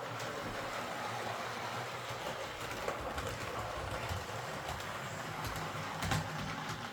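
Bachmann OO gauge Class 47 model diesel locomotive running on the track: a steady motor-and-gear whir with a few sharp clicks of the wheels over rail joints. It runs without the screech it was sent in for, which the repairer puts down to a lubrication issue.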